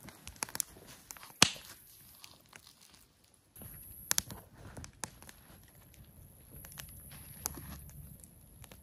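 Rustling and crinkling of a foil emergency blanket and foam sleeping mats being laid out and smoothed on the ground, with several sharp pops, the loudest about one and a half seconds in.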